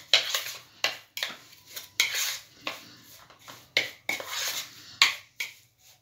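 A metal utensil scraping and clinking against a bowl while stirring damp flaked corn meal (flocão) with water and salt, in irregular strokes that stop shortly before the end.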